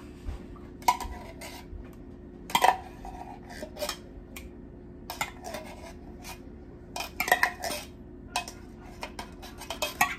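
A spoon scraping and clinking against a dish while mixing a thick casserole mixture, in irregular knocks and scrapes a second or two apart.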